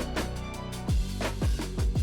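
Background music: electronic track with deep kick-drum hits that drop in pitch, about three in two seconds, over sustained bass notes.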